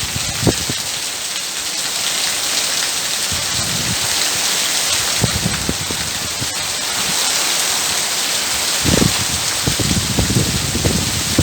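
Steady rain: an even hiss with scattered heavier drops knocking low, several close together about nine seconds in.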